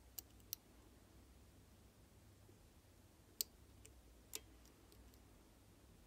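Faint, sharp metallic clicks of lever-lock picking tools working the levers inside a 10-lever Ingersoll padlock: two in the first second, then three more around the middle, the loudest about three and a half seconds in.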